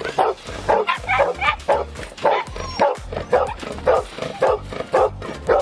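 Dogs barking over and over, about two barks a second.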